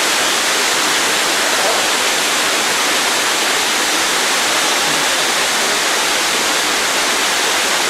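Waterfall rushing steadily: a loud, even hiss of falling water with no change.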